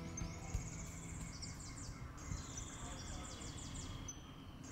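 Insects chirping in a garden: high, rapidly pulsed chirps that repeat in short trains, over a steady low background rumble.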